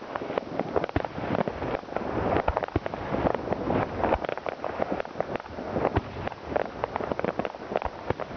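New Year's Eve fireworks and firecrackers going off in a dense, continuous run of bangs and crackling.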